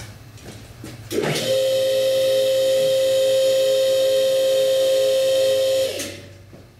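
Two-post car lift's electric hydraulic pump running under load as it raises a car: a steady, loud whine with one strong tone that starts about a second in and cuts off sharply about six seconds in.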